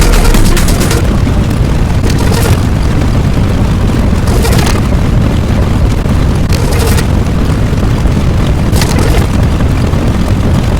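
Explosion sound effect: a loud, continuous low rumble, with a burst of hiss flaring up about every two seconds.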